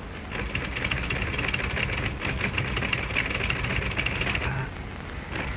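Rapid clatter of a manual typewriter's keys over the hiss and crackle of an early sound-film track. The typing lets up for about a second near the end.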